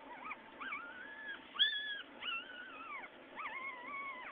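Young puppies whining: about five high, wavering cries in a row, the loudest about a second and a half in. They are whining after being woken from sleep.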